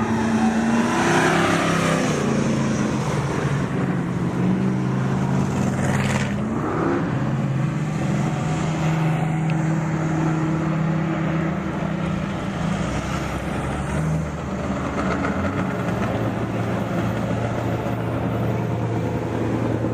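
Engines of off-road race vehicles running slowly past in a line, several at once, their pitch stepping up and down as they rev. One goes by close about six seconds in.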